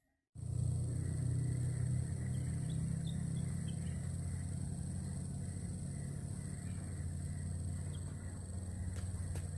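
Steady outdoor ambience: a constant low rumble with a thin, steady insect trill high above it, and a few faint chirps. A couple of faint clicks come near the end.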